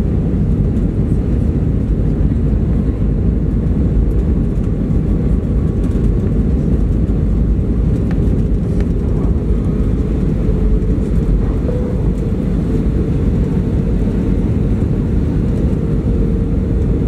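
Steady cabin noise inside an Airbus A320 airliner on approach: engine and airflow noise heard through the fuselage, mostly deep, with a faint steady hum above it.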